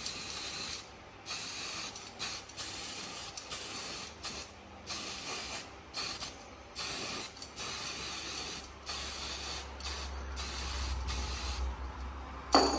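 Hissing spray in short stop-start bursts, each well under a second to about a second long, with a single sharp knock near the end.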